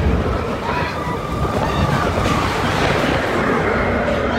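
Roller coaster train running on its steel track, its wheels giving a steady low rumble and rattle.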